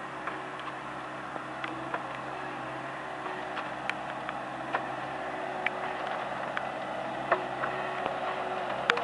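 Bobcat S160 skid-steer loader's diesel engine running steadily as its front attachment tears old vines out of the ground, with scattered sharp clicks throughout.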